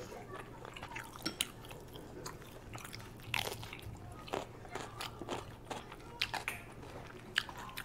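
A person biting and chewing food close to the microphone, with irregular small crunches and clicks.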